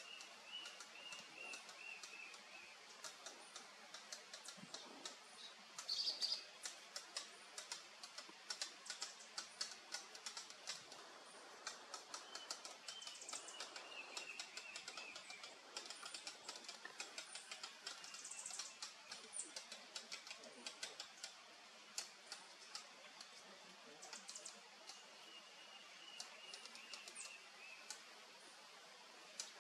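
Faint forest ambience: a scatter of light, irregular clicks, with a distant bird giving a short descending series of notes three times, near the start, in the middle and near the end.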